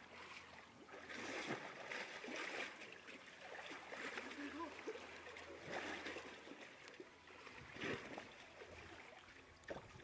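Pool water splashing and sloshing, stirred up by a polar bear swimming and rolling against the pool wall, with a few louder splashes.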